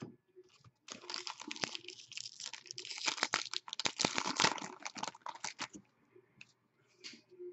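Shiny foil wrapper of a hockey trading-card pack being torn open and crinkled by hand: a dense crackling that starts about a second in and stops at about six seconds.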